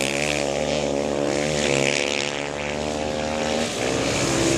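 Racing quad (ATV) engines held at high revs with a steady, slightly wavering note. Near the end a rougher engine sound takes over as another quad slides past.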